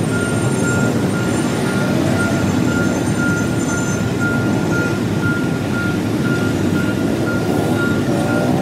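Railway level-crossing warning signal beeping in a high, evenly repeating tone over dense road traffic: cars, trucks and motorcycles idling and moving off. The signal warns that a train is coming as the crossing barrier lowers.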